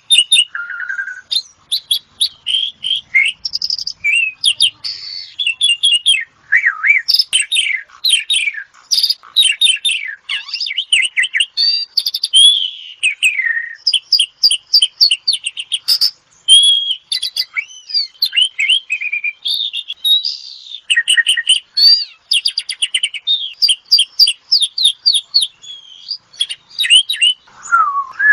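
Asian pied starling (jalak suren) singing a long, varied song of whistles, chatter and fast repeated-note trills, with hardly a break.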